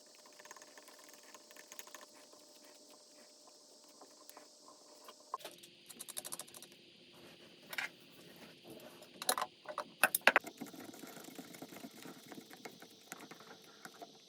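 Hand work on a toilet: scattered light clicks and rattles, then a few sharper knocks of hard parts and tools about eight to ten seconds in.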